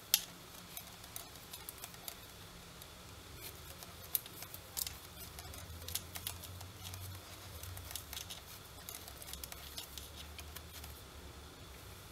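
Wooden knitting needles tapping and sliding against each other and the yarn as stitches are knitted: faint, scattered clicks over a low hum.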